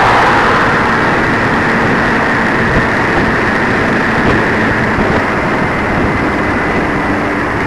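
Steady driving noise of a moving car: engine and tyre-on-road rush, with a brief swell at the start.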